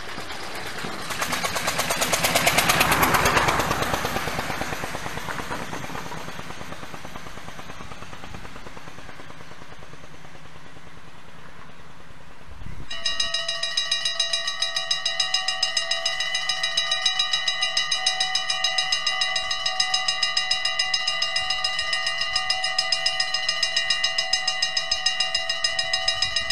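A small open vintage vehicle drives past, its engine with a fast pulse swelling and then fading over several seconds. About halfway through, the level crossing's warning bells start ringing in a fast, even beat of several tones at once as the red lights flash and the barriers come down.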